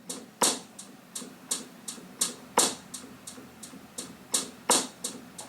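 Electronic drum sounds from a Juno keyboard's drums-and-percussion patch: a steady pattern of short, crisp hits about three a second, with louder, fuller hits roughly every two seconds.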